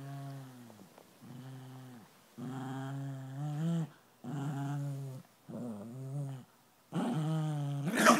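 A small dog growling in play, in six long low growls of about a second each with short pauses between, while a hand wrestles with it. Right at the end it breaks into a sudden louder, sharper outburst.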